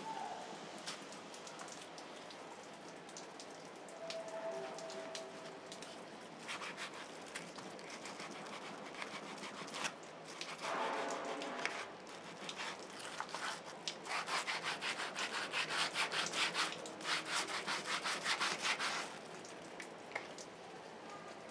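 Hand scrubbing and sanding of a sandal sole with a wire brush and sandpaper: scratchy back-and-forth strokes, picking up near the end into a quick, louder run of about four strokes a second.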